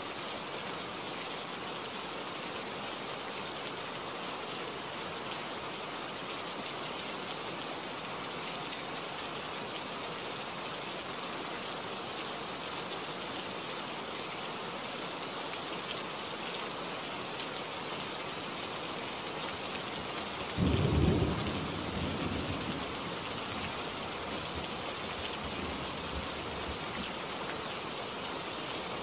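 Steady rain falling. About two-thirds of the way in, a sudden loud crack of thunder, the loudest thing here, rumbles and fades away over a few seconds.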